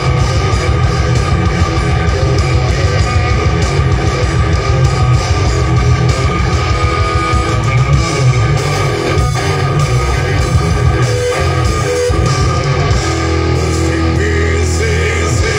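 Live rock band playing loud through a large outdoor stage PA: distorted electric guitars, bass and drums in a heavy, driving riff. Near the end the band settles onto a long held low note.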